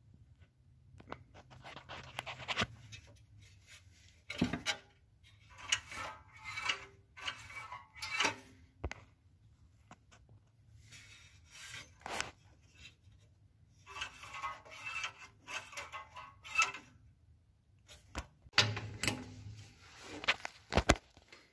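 Hand work on a Predator 212cc engine's throttle linkage and return springs: irregular scraping and rubbing with several sharp metallic clicks. No engine is running.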